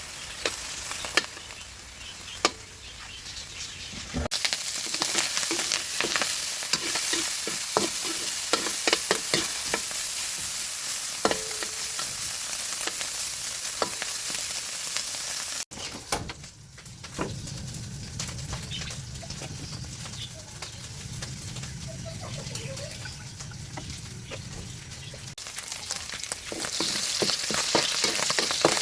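Food frying in hot oil in a pan: a steady sizzle with frequent sharp clicks and scrapes of a utensil against the pan as it is stirred. The sound changes abruptly three times.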